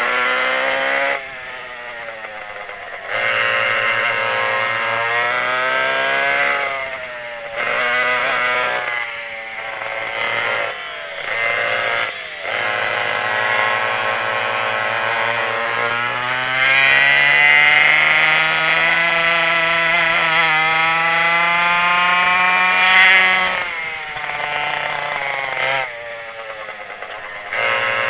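Twin McCulloch 87 cc two-stroke kart engines running at racing speed, repeatedly revving up and dropping off as the throttle is lifted for corners. The longest climb in pitch lasts about nine seconds before the engines fall away sharply.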